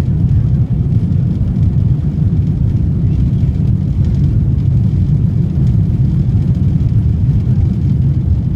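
Airbus A330 airliner taking off: a steady, loud low rumble of jet engines and airframe with no distinct events.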